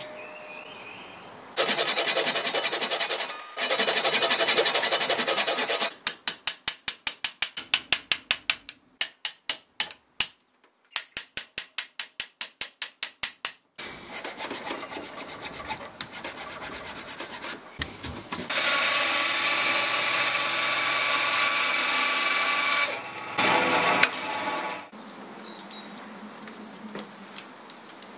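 Hand sawing into hardwood with a Japanese pull saw, cutting a kerf along a crack: stretches of steady rasping strokes, runs of quick short strokes, and quieter scraping and handling of the wood between cuts.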